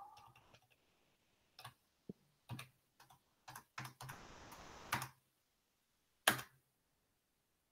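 Computer keyboard keys tapped in a few scattered strokes as a terminal command is typed, with a brief rush of noise about four seconds in and one louder key strike a little after six seconds.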